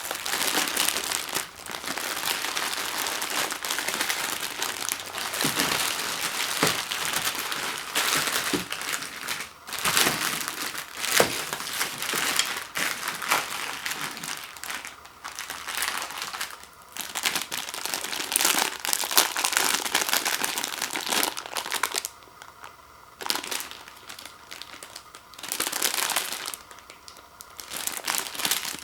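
Plastic packaging of instant ramen noodle packets crinkling and rustling as it is handled, in uneven bursts with a couple of short pauses near the end.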